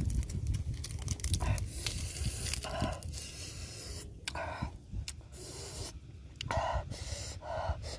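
Close-miked eating sounds: crisp lettuce leaves rustling and crinkling as they are folded in the hands and dipped, with chewing, in a handful of short noisy bursts.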